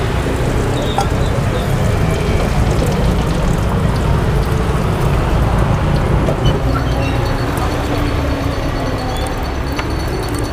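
Beaten egg poured into hot oil in a wok and sizzling as it fries, over a steady low rumble.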